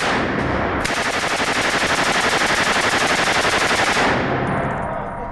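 M240 7.62 mm belt-fed machine gun firing a fully automatic burst on an indoor range: a rapid, even stream of shots that lasts about three seconds, then stops, and the echo dies away.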